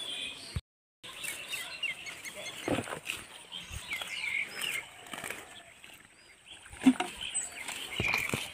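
Small birds chirping again and again, with a few scattered thumps; the loudest thump comes near the end. The sound cuts out completely for about half a second just under a second in.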